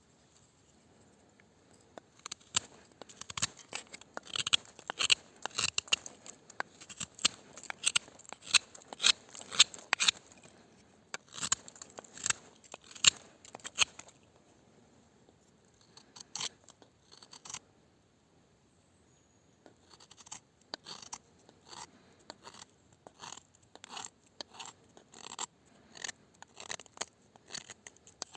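Mora Frosts S-201H knife blade slicing through material in many quick, short cutting strokes, coming in runs with pauses of a couple of seconds between them.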